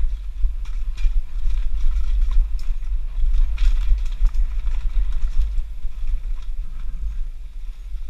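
Downhill mountain bike rattling and clattering over rocks and roots, with many sharp knocks and clicks, thickest in the first half, over a steady rumble of wind buffeting the action-camera microphone.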